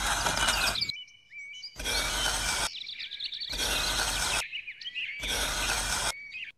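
Metal palette knife scraping lines into sand in four even strokes of about a second each, with small birds chirping between the strokes.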